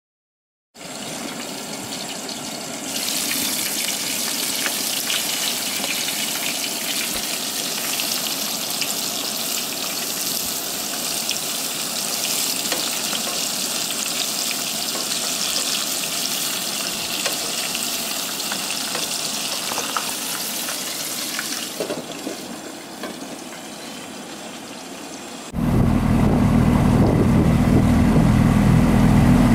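Shrimp deep-frying in a pot of oil on a camp stove: a steady sizzle that weakens about 22 seconds in. Near the end it cuts suddenly to a skiff's outboard motor running under way.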